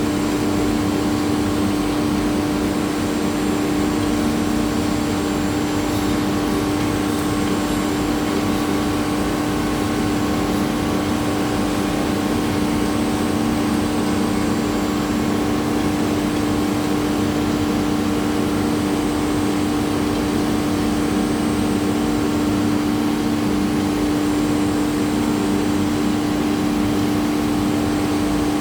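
Spindle of an automatic-tool-change CNC router running at a steady, high-pitched whine while it cuts a GRC (glass-fibre reinforced concrete) panel, over a constant grinding hiss of the cut.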